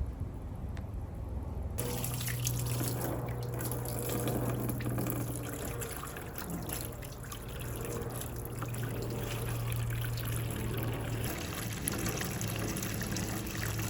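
Water running and trickling through a water marble run's channels, starting about two seconds in, with a low steady hum underneath.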